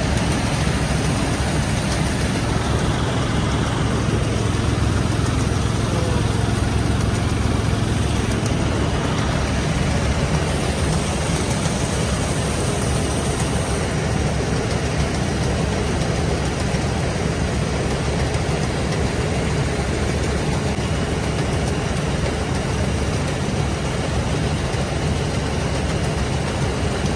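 Combine harvester running steadily while its unloading auger pours threshed paddy into a tractor trolley: a constant low engine hum under the rushing of machinery and falling grain.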